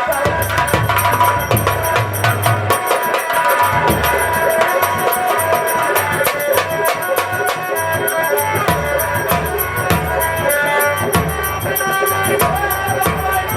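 Instrumental folk music with fast, steady drumming and a held melody line over it, between sung verses.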